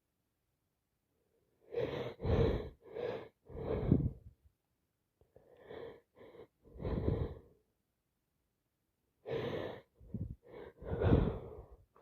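A woman with a cold turned sinusitis gasping and sneezing in three short bouts, each a few quick loud breaths and sneezes, with silence between the bouts.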